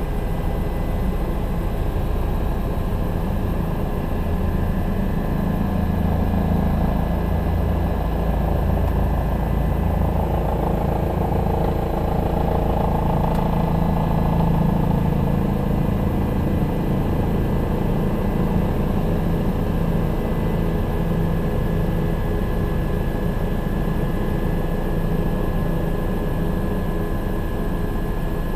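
Helicopter in flight: steady engine and rotor noise, a heavy low drone with a faint high whine running through it.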